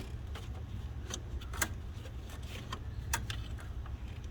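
Scattered metallic clicks and clinks of a spring-type squeeze hose clamp being opened with a tool and a heater hose being worked onto its tube, the sharpest about a second and a half in and again about three seconds in, over a steady low rumble.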